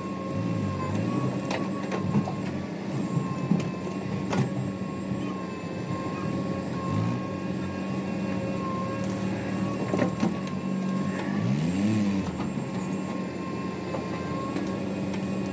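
Heavy diesel machinery running steadily with a low hum and a steady higher whine, a few sharp knocks, and a brief rise and fall in engine pitch about twelve seconds in.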